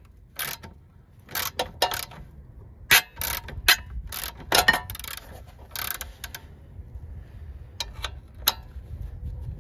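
Socket ratchet clicking on the 18mm camber-adjustment bolt of a BMW E46's rear suspension, with a wrench holding the nut behind. The clicks come in short irregular bursts as the handle is swung back and forth, thick through the first six seconds, with a few more near the end.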